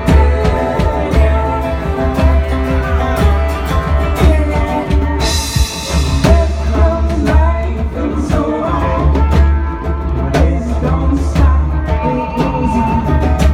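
Live folk band playing with singing and guitar, over a heavy low bass. A short burst of hiss about five seconds in.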